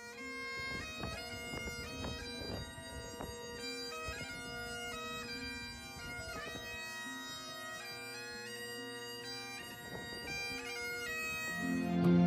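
Great Highland bagpipes played solo: a melody on the chanter over the steady hum of the drones. Near the end, soft background music fades in over it.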